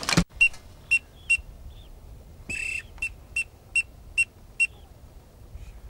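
A duck whistle call blown in short, high whistled toots of one pitch. There are three toots, then one longer note, then a run of five evenly spaced toots, the kind of peeping whistle used to call teal and pintail. A sharp knock comes just at the start.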